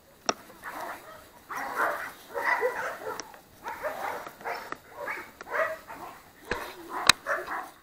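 Dogs barking again and again in short bursts, with a few sharp clicks, the loudest one near the end.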